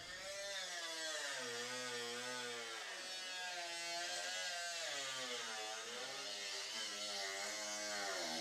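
Small electric cutting tool trimming fiberglass: a steady motor buzz whose pitch sags and recovers as it bites into the panel.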